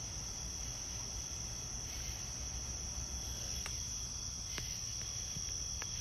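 Nighttime insect chorus: a steady, unbroken high-pitched trill, with a few faint clicks.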